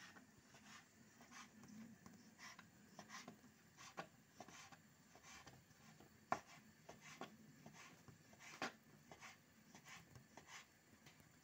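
Kitchen knife cutting fresh noodle dough on a floured wooden board: faint, irregular taps and scrapes of the blade on the wood, two or three a second, with a sharper knock a little past halfway and another a couple of seconds later.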